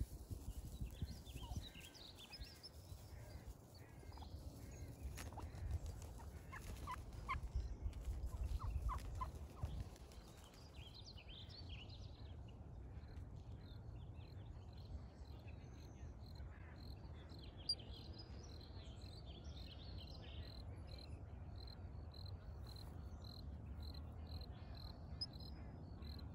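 Wild turkey gobbling in a few short, faint bursts in the first half, over a low rumble. From about halfway on, a high chirp repeats steadily about twice a second.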